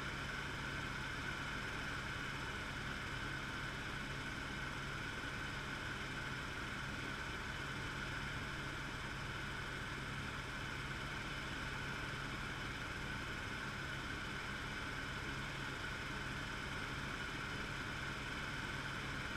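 Helicopter in flight heard from inside the cabin: steady engine and rotor noise with a constant low hum and a high whine.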